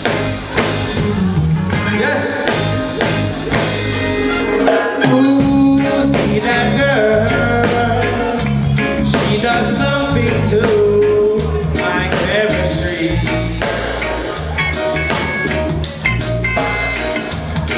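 Live reggae band playing an instrumental lead-in: drum kit and bass keeping a steady beat under a melody line.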